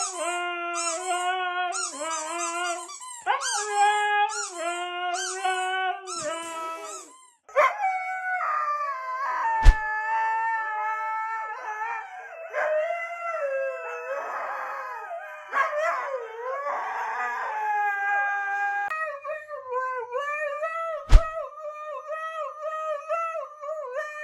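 Huskies howling and screaming in long, wavering, high-pitched cries, one clip after another with abrupt changes between them. Two sharp, loud clicks cut in, about ten seconds in and again near the end.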